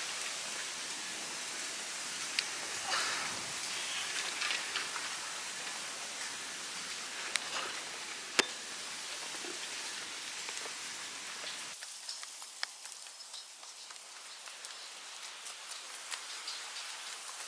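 Steady rain falling on forest foliage: an even hiss with a few scattered sharp taps.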